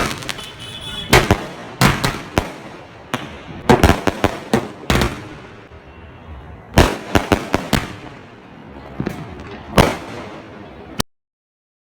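A 50-shot aerial firework cake firing: a string of sharp bangs at uneven intervals, several in quick clusters, each with a short crackling tail. The sound cuts off abruptly near the end.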